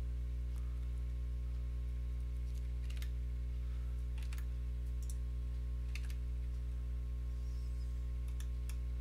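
Steady low electrical hum, with a handful of faint computer mouse clicks scattered through.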